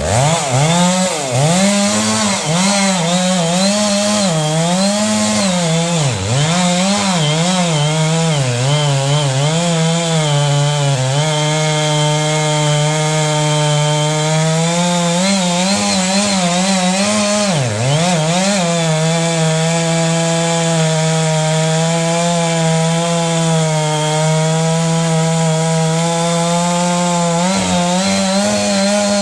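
Two-stroke chainsaw running hard. Its engine speed rises and falls for about the first ten seconds, then holds steady under load as it cuts through wood, with one brief drop about eighteen seconds in.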